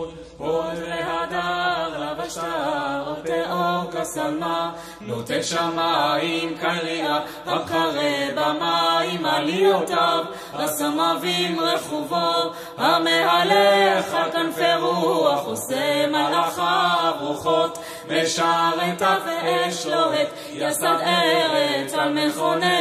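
Background music: a song with sung vocals in a slow, chant-like melody.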